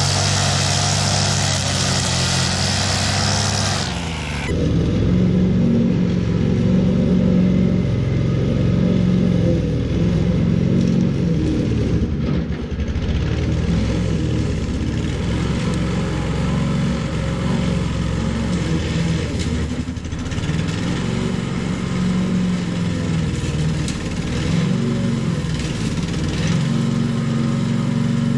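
Petrol walk-behind rotary lawn mower running as it cuts slightly overgrown grass, its engine note wavering up and down with the load. About four seconds in, the sound changes abruptly to a duller, lower tone.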